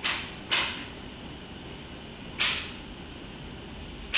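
Calico cat chewing fresh wheatgrass blades held out by hand: four short crunching bites, two close together at the start, another about two and a half seconds in, and one at the end.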